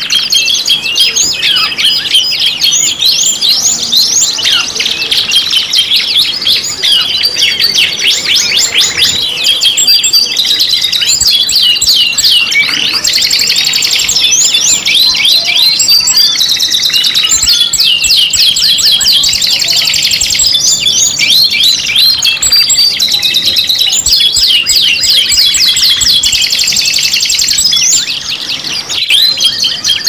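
Several domestic canaries singing at once, their songs overlapping in a dense, continuous stream of rapid trills and chirps.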